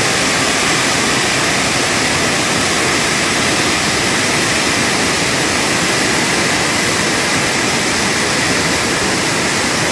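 Water rushing: a steady, loud, unbroken noise of the kind a flood torrent makes.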